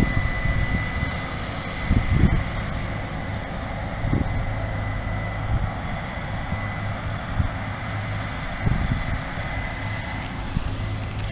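Two Case IH rotary combines running steadily at a distance while harvesting soybeans: a steady engine drone with a thin high whine, and short wind gusts thumping on the microphone.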